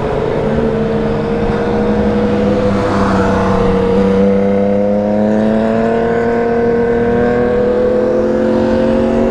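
Motorcycle engine running under way, its pitch climbing slowly and steadily as it accelerates gently, with wind rush over the rider.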